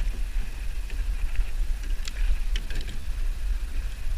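Wind buffeting the microphone with a steady low rumble, over light water noise. A few short splashes and knocks come about two to three seconds in as a hooked largemouth bass is grabbed from the water beside the kayak.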